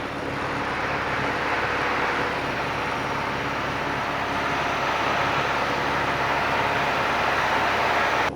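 Steady drone of a light single-engine piston airplane's engine and propeller, with rushing air, heard inside the cockpit in cruise.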